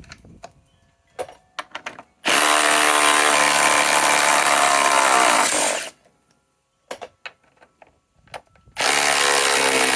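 Ryobi PSBIW25 compact cordless impact wrench hammering 6-inch lag screws loose, in two runs of about three and a half seconds, the second starting near the end. In each run the pitch dips and then climbs as the lag backs out, with a few short clicks between the runs.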